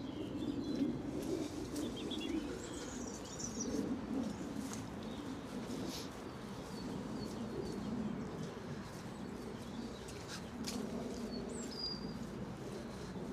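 Outdoor birdsong: a low repeated cooing of a pigeon or dove with short high chirps from small birds, and scattered light clicks and scuffs.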